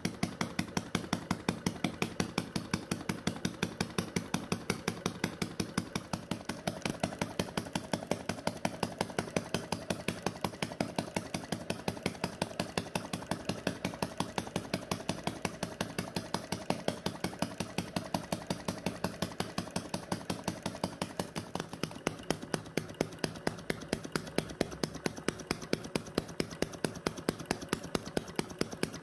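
Model vacuum (flame-licker) engine running steadily, its mechanism giving a fast, even run of clicks.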